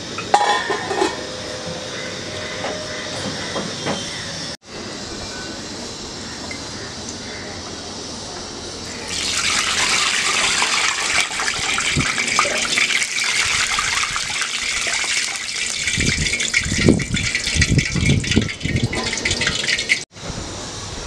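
Hot oil sizzling and spattering violently as beer hits it, a loud, dense crackle that starts abruptly about nine seconds in.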